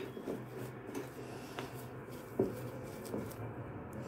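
A fork mashing and stirring crumbly cottage-cheese filling in a ceramic plate: soft rubbing and squishing, with a few light taps of the fork against the plate.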